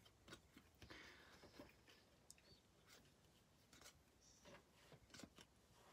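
Near silence with faint, scattered soft ticks of baseball cards being slid one by one from the front of a stack to the back.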